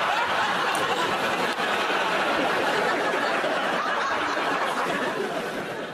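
Studio audience laughing at a joke, a sustained wave of many voices that eases off near the end.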